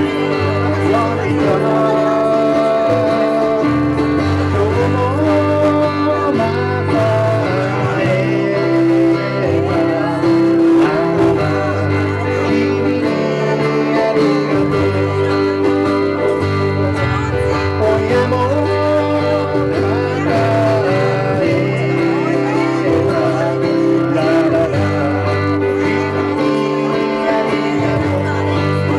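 Live acoustic band: several acoustic guitars strummed together while men sing, in a country or folk style.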